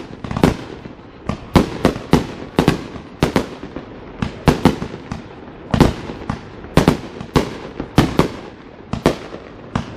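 Fireworks going off in rapid, irregular succession: sharp bangs about two or three a second, each trailing off in a short echo.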